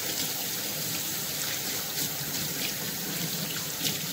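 Kitchen tap running steadily into the sink while a person washes their hands under it.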